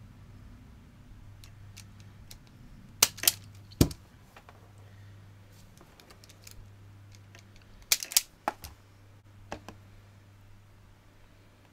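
Hand-operated self-adjusting wire strippers snapping shut on a vacuum cleaner's mains cable as its insulation is stripped: a cluster of sharp clicks about three seconds in and another about eight seconds in, over a faint steady low hum.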